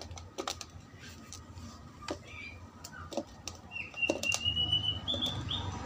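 Scattered light clicks and taps, with a bird's thin whistled call about four seconds in, over a faint low background hum.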